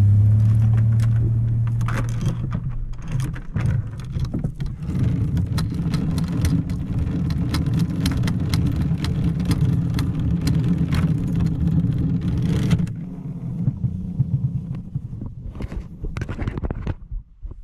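Small motorboat's engine running underway, a steady drone with many sharp knocks over it, likely the hull on the water. About thirteen seconds in the drone drops away and gets quieter, as the boat slows.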